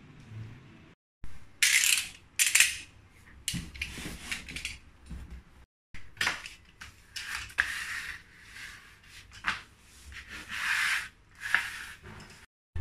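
Utility knife slicing through cardboard in a series of irregular scraping strokes, some short and some drawn out for about a second, as a shape is cut out along a drawn outline.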